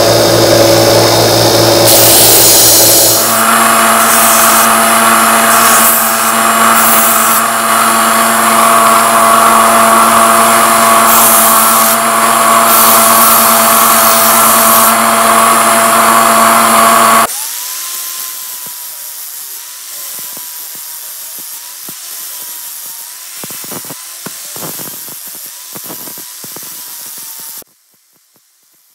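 Belt sander running loudly, its motor and belt holding steady tones under a high scraping hiss as the steel wrench is ground against the belt to take down its rough, mushroomed surface. About two-thirds of the way in the sound drops suddenly to a much quieter wavering hum with a few clicks, which cuts off near the end.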